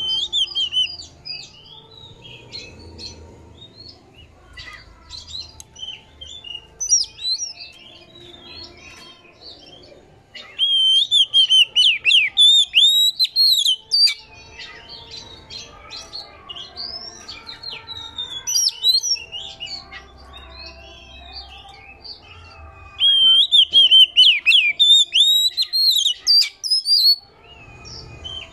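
Oriental magpie-robin singing: scattered whistled notes, broken twice by long loud runs of rapid chattering notes, about ten seconds in and again near the end.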